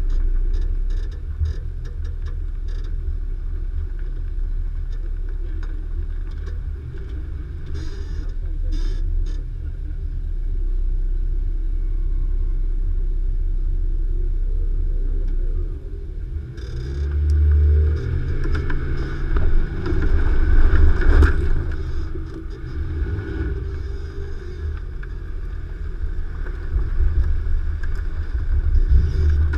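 Nissan Xterra Pro-4X's 4.0 L V6 pulling at low speed over rough off-road ground: a steady low rumble with scattered knocks. About halfway through, the engine revs up and down in louder surges.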